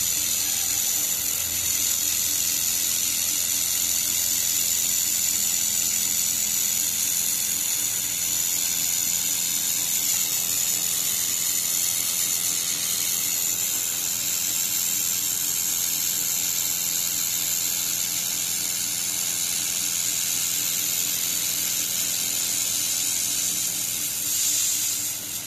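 Handheld laser welder laying a continuous weld along a sheet-metal seam: a steady, high-pitched hiss that cuts off suddenly at the end when the laser stops.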